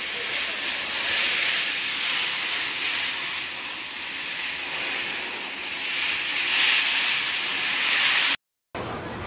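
Steady rushing hiss that swells slightly now and then. It cuts off suddenly about eight seconds in, and after a brief silence a duller steady noise takes over.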